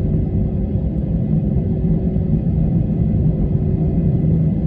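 Airliner cabin noise: a steady low rumble of the jet engines and the plane rolling on the ground, with a few faint steady tones above it.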